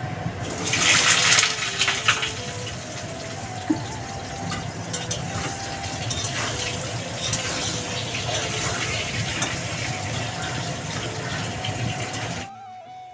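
Cut potatoes frying in hot oil in a pan: a louder burst of sizzling about a second in, then steady sizzling that stops abruptly near the end.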